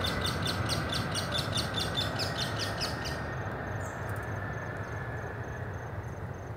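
Airbus A321's IAE V2500 jet engines rumbling as the airliner rolls out after landing, slowly fading. A bird's rapid, evenly repeated chirping sounds over it and stops about halfway through.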